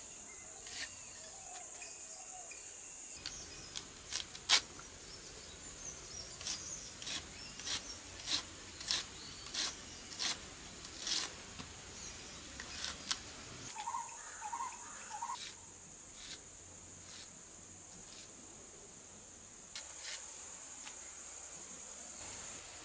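Red onion being sliced against a curved knife blade by hand: a run of sharp, irregular knife clicks, about one or two a second, thinning out in the second half. A steady high insect drone runs underneath, with a brief chirping call about fourteen seconds in.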